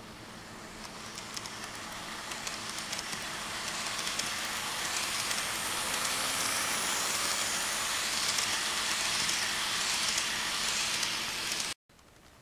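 Kato E233 Chuo Line model train running along the track, its wheels and motor making a steady whirring hiss on the rails with faint clicks, growing louder as it passes close. It cuts off suddenly near the end, and a quieter hiss follows.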